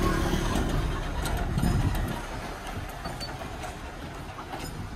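Hyundai light truck's diesel engine running at low revs, a steady rumble that grows quieter about two seconds in.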